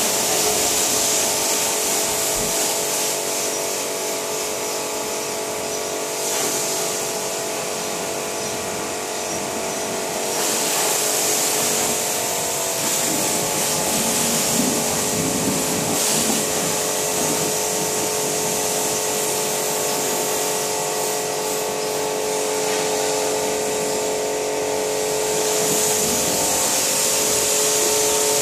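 Kärcher 140-bar pressure washer running with a steady motor-and-pump whine under the hiss of its high-pressure water jet hitting a car's bodywork. The spray hiss dips briefly a few times.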